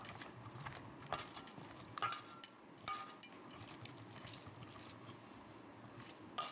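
Hands mixing fish pieces into a wet mustard-paste marinade in a steel bowl: soft handling and rustling, with sharp clinks against the metal bowl every second or so, a few of them ringing briefly.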